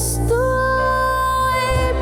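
Female vocalist holding one long sung note over a band's accompaniment with a steady bass; a new note begins near the end.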